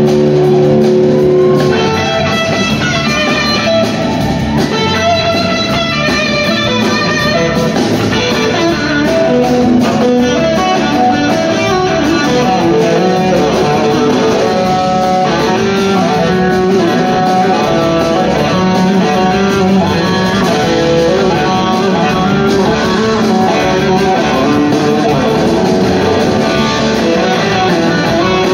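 Live rock band playing an instrumental passage, heard from the audience: an electric guitar plays quick melodic lead lines over organ, bass and drums. A held chord near the start gives way to the run of notes.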